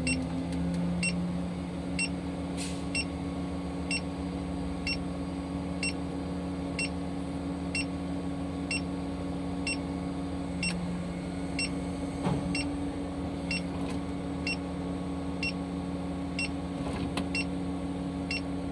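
Liebherr LTM 1120-4.1 mobile crane raising its counterweight on the hydraulic lifting cylinders, with the engine and hydraulic pump droning steadily under load. A short electronic warning beep sounds about once a second throughout.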